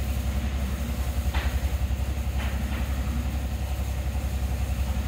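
An engine idling nearby, a steady low rumble with a fast, even pulse, with a few short scrapes of a small hand tool trimming wet mortar about one and a half and two and a half seconds in.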